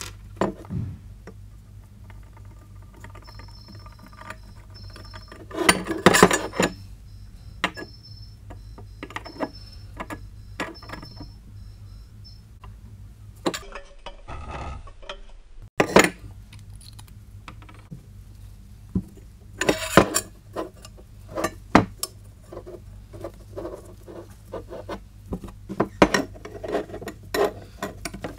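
Steel motorcycle exhaust pipes being handled on a workbench: irregular clunks, knocks and scraping as the downpipe is lifted, turned over and set down, with rubbing from the heat-wrap tape. The loudest knocks come about six seconds in, around sixteen seconds and around twenty seconds.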